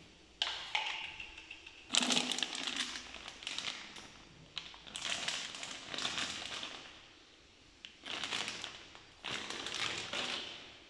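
Packaging being handled, crinkling and rustling in about five bursts of a second or two each with short pauses between.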